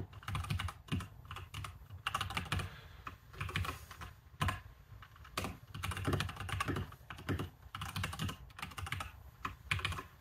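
Typing on a computer keyboard: keystrokes come in quick runs with short pauses between them.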